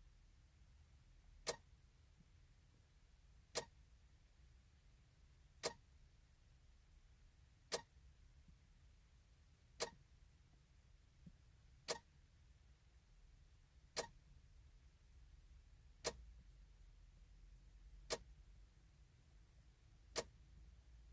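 A sharp electrical click from the 2014 Chevy Silverado, repeating steadily about every two seconds, ten times. It is the clicking symptom that comes with the truck's no-crank fault, the dash flicker and the dead radio.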